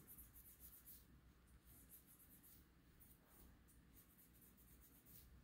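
Faint, quick, scratchy strokes of sandpaper rubbed back and forth over a metal watch case, sanding it to a satin finish.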